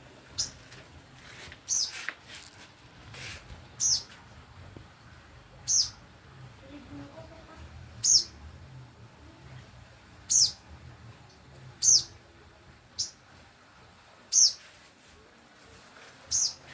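A pet songbird repeatedly giving a short, sharp, high call that falls in pitch, about every one to two seconds: a bird in full, steady voice ('gacor').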